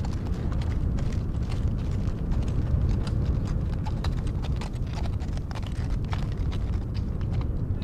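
Hooves clattering irregularly, many sharp knocks close together, over a steady low rumble.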